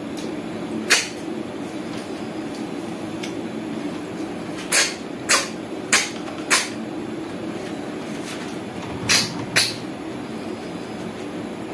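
Short, sharp sucking slurps of freshwater snails (ghungi) being sucked out of their shells while eating by hand. There are seven in all: one about a second in, a quick run of four near the middle, and two near the end, over a steady low hum.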